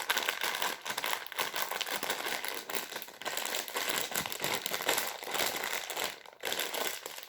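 Steady crinkling, crackling handling noise as kinetic sand is tipped out and worked by hand, with a brief lull about six seconds in.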